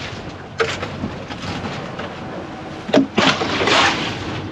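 Boat engine running steadily underneath, with sharp knocks about half a second in and near three seconds, the second followed by a short rush of noise lasting about a second.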